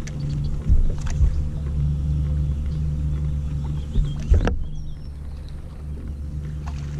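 Boat motor running with a steady low hum, broken by a few sharp knocks; the loudest knock comes about four and a half seconds in.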